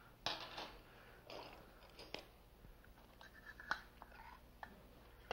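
Faint rustling of a cloth towel and handling of metal muffin tins holding freshly baked pastry shells, with a couple of sharp light clicks of metal on metal.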